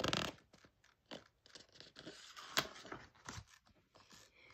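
Pages of a picture book being turned and handled: a short rustle at the start, then faint scattered paper rustles and taps, the sharpest about two and a half seconds in.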